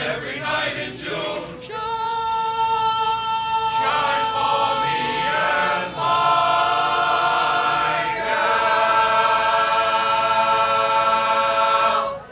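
Men's chorus singing a cappella in long held chords. The last chord swells, is held for about four seconds, and is cut off together near the end.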